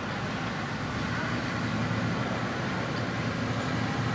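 Steady outdoor street ambience: a low, even rumble of road traffic and wind, with no single event standing out.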